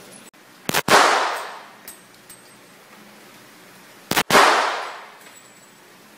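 Two gunshots about three and a half seconds apart, each a sharp, very loud crack followed by about a second of echo off the walls of an indoor range.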